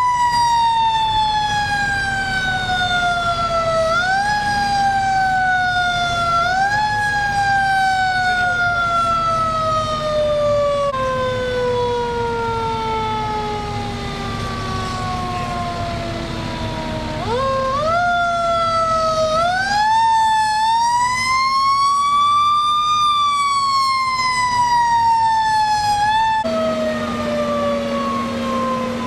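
Fire engine siren winding up and down: each time the pitch climbs quickly, then sinks slowly for several seconds, once falling for about ten seconds before it swings up again. Under it is a steady low drone of the idling apparatus.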